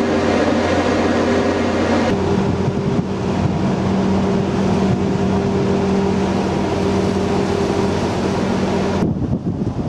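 Ship's engine machinery running with a steady low hum and hiss. The sound changes abruptly about two seconds in, and near the end it gives way to wind buffeting the microphone.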